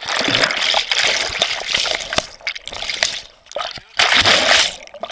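Water splashing and sloshing as a person moves through it: a long spell over the first three seconds, then a shorter one about four seconds in.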